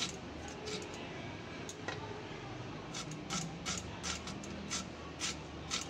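Vegetable being cut against a boti, the fixed curved blade of a Bengali kitchen: a series of short crisp cutting strokes, a few at first, then about two to three a second from about halfway through.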